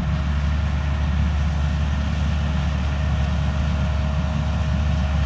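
Large diesel farm machine running steadily at working speed: a constant low engine drone with a thin, steady whine over it.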